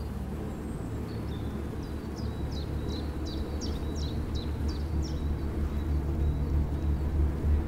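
Outdoor ambience: a steady low rumble that swells near the end, with a bird singing a run of short, high chirps, about three a second, from about a second in until about five seconds in.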